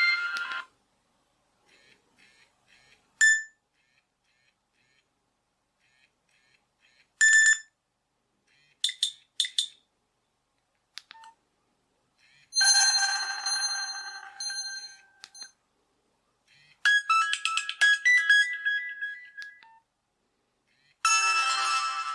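Nokia 6500 Classic mobile phone playing a series of ringtones one after another, separated by pauses. The first few are single short tones or a quick run of chirps. Three longer melodic ringtones follow, each lasting about three seconds, and the last is still playing at the end.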